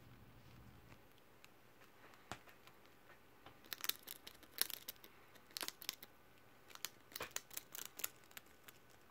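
Pet rat nibbling a ridged potato chip: small, sharp crunches and crackles in irregular clusters, sparse at first and more frequent from about a third of the way in.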